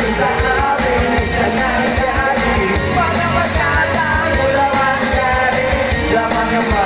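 Rock song played by a videoke machine, with a voice singing along over the backing track.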